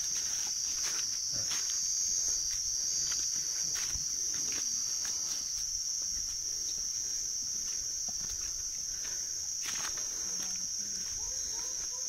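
Chorus of crickets or similar insects: a steady, unbroken high-pitched trill, with scattered light clicks and knocks over it.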